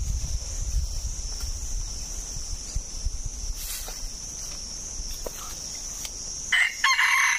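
Steady high-pitched drone of insects, and near the end a loud rooster crow.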